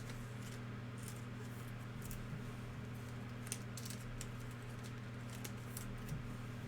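Panini NBA Hoops trading cards being flipped through by hand: faint, scattered light clicks and slides of card stock over a steady low hum.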